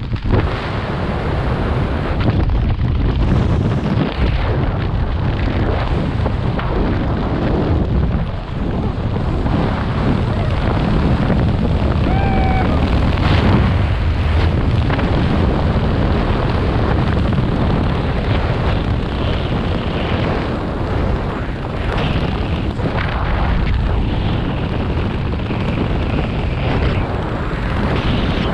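Loud, steady wind noise from air rushing over a skydiver's camera microphone in freefall, buffeting heavily in the lows with small surges throughout.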